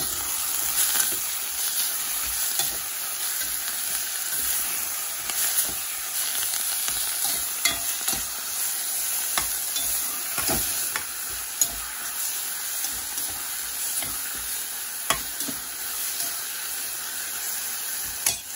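Onions, green chillies and fresh coriander and mint sizzling in a pot while a spatula stirs them, with scattered scrapes and knocks of the spatula against the pot, the sharpest about three-quarters of the way through.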